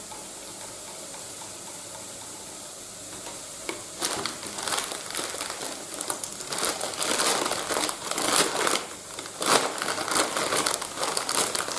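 A pan of leek and bacon sizzling quietly and steadily, then from about four seconds in irregular crinkling and rustling as a plastic packet of grated cheese is handled.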